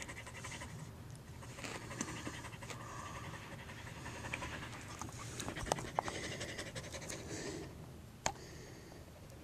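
A dog panting steadily, close to the microphone, with a few short, sharp clicks around the middle and once near the end.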